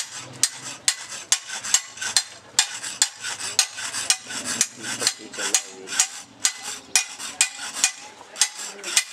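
Hand hammer striking a steel fodder-chopper (toka) blade on a small anvil in a steady rhythm, about two to three blows a second, each a sharp ringing metal clank.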